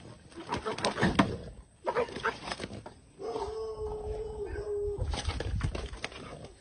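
Dog growling and barking in short rough bursts as it attacks a snake, with sharp knocks and deep thuds from the scuffle in the grass. A steady, drawn-out tone is held for about two seconds in the middle.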